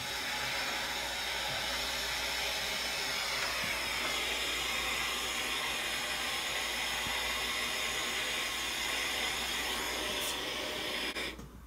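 A motor running with a steady rushing hiss and a whine; the whine drops in pitch a few seconds in, and the sound stops abruptly near the end.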